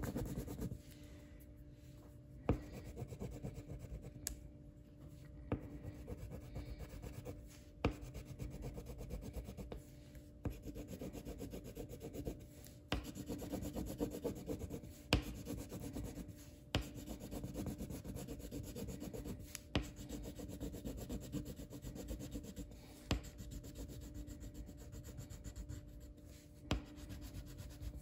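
Colouring on paper: a drawing tool rubs back and forth in stretches of scribbling, with a sharp tick every two to three seconds.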